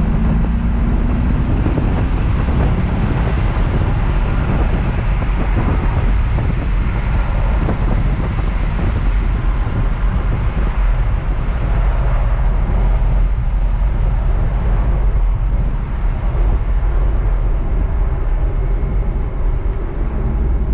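1998 Chevrolet Corvette C5's LS1 V8 engine running steadily while the car is driven, with continuous road and wind noise. The engine note rises slightly in the first couple of seconds.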